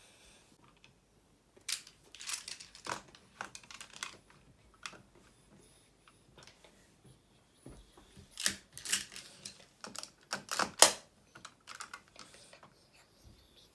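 Plastic magnetic building tiles clicking and clacking together as they are handled and snapped into place: irregular sharp clicks in two busy spells, with a quieter stretch between.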